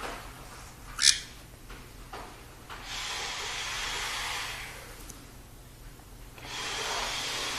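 Parrot giving one short, high, rising chirp about a second in. Soft hissing noise swells and fades twice after it.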